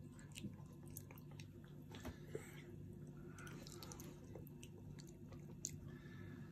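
A small child chewing and biting into a soft vatrushka pastry, faintly: scattered small mouth clicks over a low steady hum.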